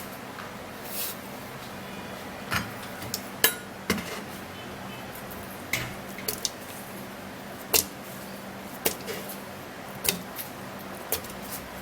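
Kitchen utensils and dishes clinking and knocking as food is handled for the blender: about a dozen irregular sharp taps over a faint steady low hum.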